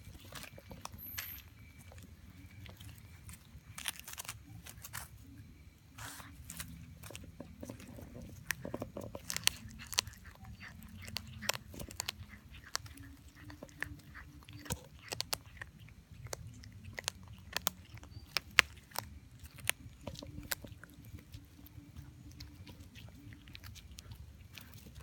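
A cat chewing and biting into raw pangasius fish: many sharp, irregular crunches and clicks of its teeth on the flesh, coming thickest and loudest in the middle of the stretch.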